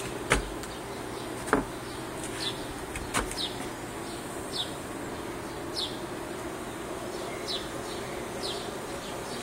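A bird repeating a short, high, falling chirp about once a second, over a steady background hiss. A few sharp knocks come in the first few seconds.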